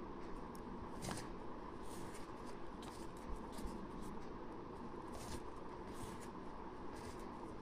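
Soft, irregular rustling and light scratching of yarn being pulled through stitches with a metal crochet hook as double crochets are worked, over a steady background hiss.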